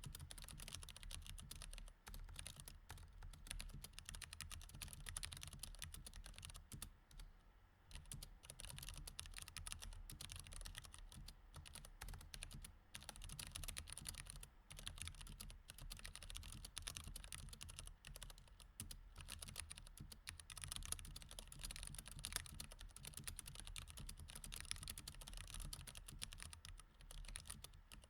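Mechanical keyboard with Cherry MX Red switches typed on continuously, a quiet, fast, uneven stream of key clicks, with a brief pause about seven seconds in.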